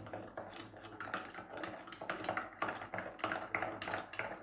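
A spoon stirring yeast, sugar and salt into lukewarm water in a small glass, clinking against the glass in quick, irregular clicks as the yeast is dissolved.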